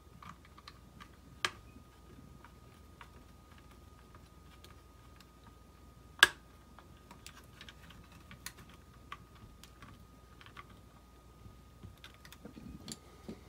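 Small screws being driven into a Hubsan Zino drone's plastic body with a hand screwdriver: scattered light clicks and ticks, with one sharp, louder click about six seconds in.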